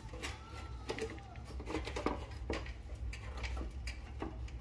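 Scattered light metallic clicks and taps as a replacement part is worked into place in an electric range's burner assembly, over a low steady hum.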